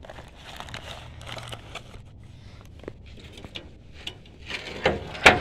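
Cardboard box being handled: faint rustling and scraping, with a few louder sharp clicks and knocks near the end.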